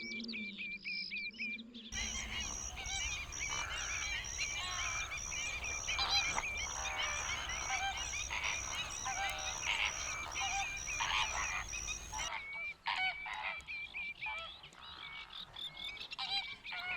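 Large colony of greater flamingos honking, many goose-like calls overlapping. The calling is dense for most of the stretch and thins to scattered calls near the end.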